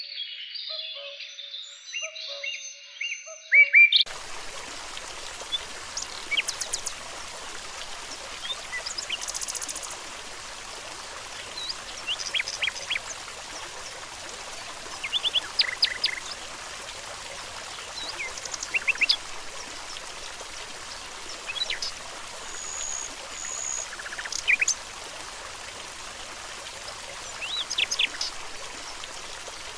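Songbirds chirping and trilling. For about the first four seconds a bird sings against silence, then the steady rush of a flowing stream comes in, with short bird calls over it every few seconds.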